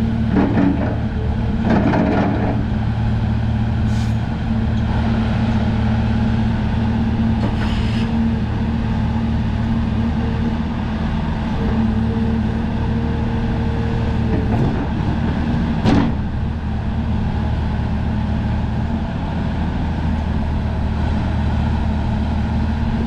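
Hyundai R340L hydraulic excavator's diesel engine running steadily while the boom and bucket are worked up and down. A few sharp knocks sound over it, the loudest about two-thirds of the way through.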